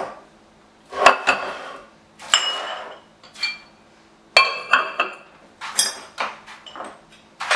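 Ceramic dishes, lids and metal spoons being picked up and set down on a kitchen counter: a string of separate clinks and knocks, several ringing briefly.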